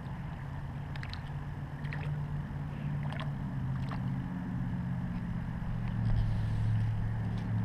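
A motor running steadily with a low hum that drops slightly in pitch and grows louder about six seconds in, with a few faint clicks over it.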